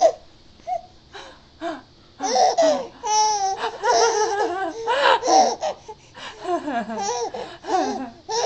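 A young baby laughing in short, high-pitched bursts whose pitch rises and falls, starting about two seconds in after a near-quiet pause.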